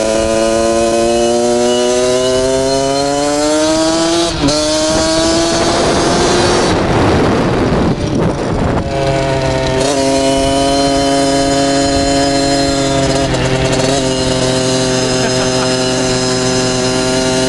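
Small dirt bike engine accelerating, its pitch climbing steadily with a brief break about four seconds in, as at a gear change, then climbing again. A rushing noise drowns it for a couple of seconds near the middle. After that the engine runs at a steady pitch with a few short dips.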